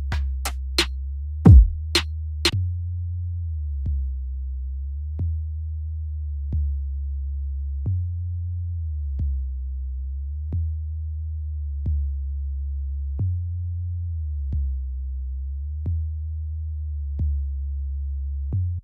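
808 bass from FL Studio's FLEX '808 Clean' preset playing a slow bass line, each long low note re-struck about every 1.3 seconds with a soft attack and the pitch stepping between notes. For the first couple of seconds, sharp drum-machine hits play over it; then the bass plays alone.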